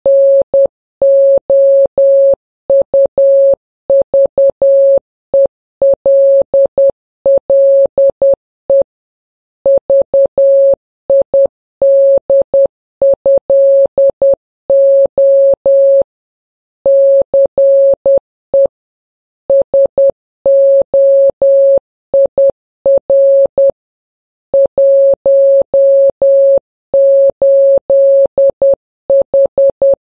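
Morse code sent as an electronic beep: a single steady mid-pitched tone keyed on and off in short and long beeps (dots and dashes), with longer pauses between groups, spelling out a coded message.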